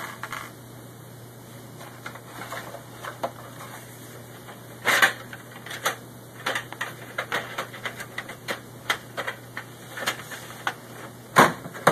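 Irregular sharp clicks and taps of a Torx screwdriver, screws and the Xbox 360's plastic and metal case as the case screws are taken out. The clicks start about five seconds in, after a quieter stretch.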